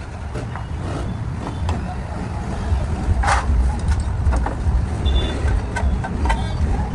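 Steady low rumble of motor vehicles, with scattered light clicks and knocks of hand tools on a motorcycle engine and one louder clatter about three seconds in.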